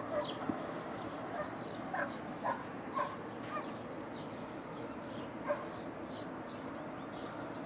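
Scattered short animal calls, high bird chirps and a few brief lower calls, over a steady outdoor hiss.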